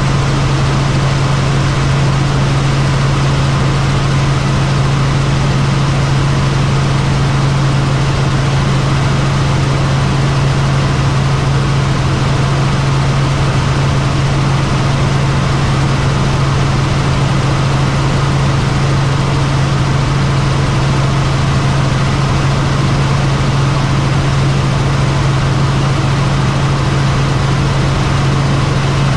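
Light helicopter's engine and rotor in steady cruise, heard from inside the cabin: an even, loud drone with a strong low hum under a wide rush of noise, unchanging throughout.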